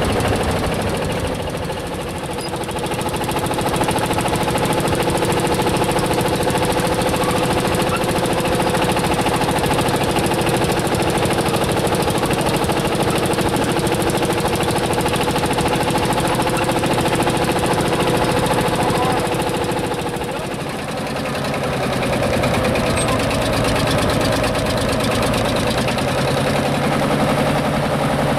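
Single-cylinder hot-bulb two-stroke tractor engine running, a steady stream of rapid, even exhaust beats. It dips slightly in level twice.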